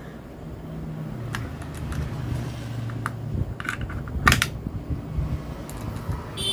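Hand screwdriver tightening a wire under the screw terminal of a modular electrical switch: a few small clicks and scrapes, the sharpest about four seconds in, over a steady low hum.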